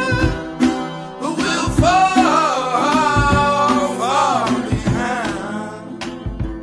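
Background music: a song with a singing voice over strummed acoustic guitar.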